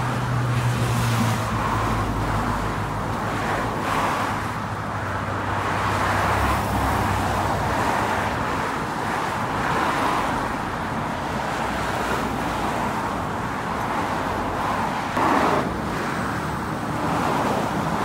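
Very noisy road traffic: a steady stream of cars passing close by on the bridge deck, their tyres hissing and engines humming. A low engine drone fades out over the first several seconds, and the traffic swells briefly louder about fifteen seconds in.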